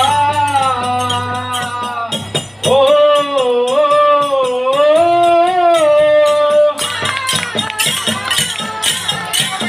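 Kamsale folk music from a devotional song to Male Mahadeshwara. A voice holds long, gliding sung notes over rapid clashing of bronze kamsale hand cymbals. The melody breaks off briefly between phrases, and the cymbal clashing takes over near the end.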